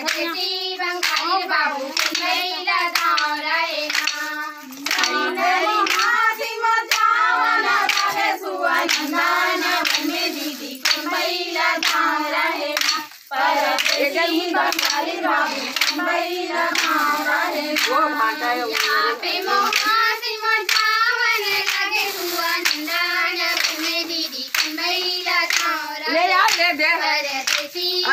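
Group of women singing a Chhattisgarhi Suwa folk song together, with steady rhythmic hand-clapping keeping the beat.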